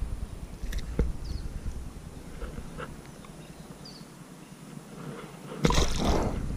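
A largemouth bass dropped back into the pond beside an aluminium john boat, hitting the water with a sudden splash about two thirds of the way in. Before it come a few light clicks and knocks of handling the fish and tackle. A bird's short falling chirp repeats every few seconds.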